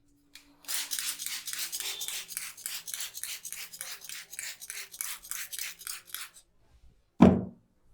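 Fast, rhythmic rubbing strokes on the hair and scalp during a vigorous head massage, about four scratchy strokes a second for some five seconds. Near the end comes a single loud, sharp thump.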